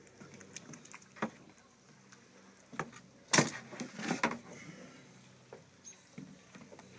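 A canoe paddle knocking against the canoe several times, the loudest knock about three and a half seconds in, followed by a short splash of water.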